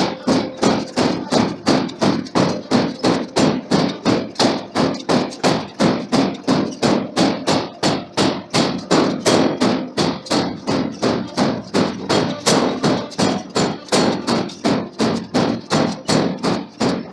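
Forging hammer striking a hot steel billet in a steady rhythm of about three blows a second.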